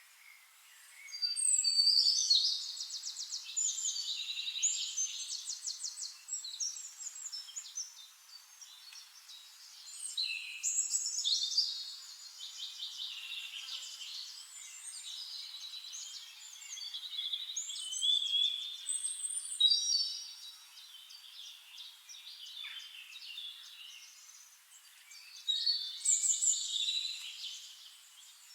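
Several songbirds singing together in a dawn chorus: rapid trills and chirping phrases that swell in loud bouts every several seconds and ease off in between.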